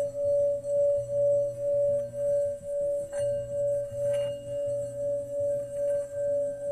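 Singing bowl sounding one steady ringing tone that swells and fades in a smooth wobble about two or three times a second.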